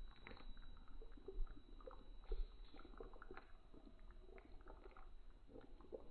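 Pot of chicken dalca, a thick lentil and vegetable curry with coconut milk, simmering: faint, irregular plops of bubbles bursting through the gravy.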